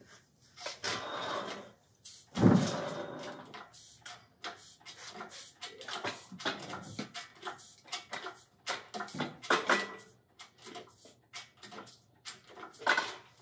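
Irregular clunks, knocks and scrapes of metal engine parts and hand tools being handled during a flathead Ford engine teardown, with one heavier thump about two seconds in.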